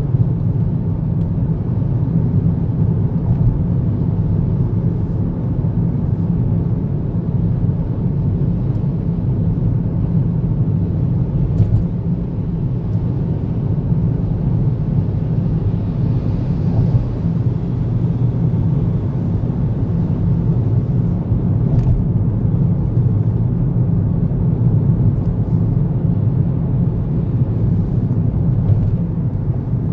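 Steady low rumble of a car's tyres and engine cruising at expressway speed, heard inside the cabin, with a few faint ticks.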